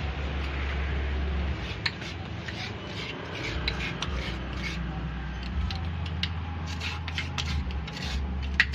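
Knife scraping the soft flesh out of a halved young coconut: a run of short rasping strokes, coming faster in the second half, over a steady low hum.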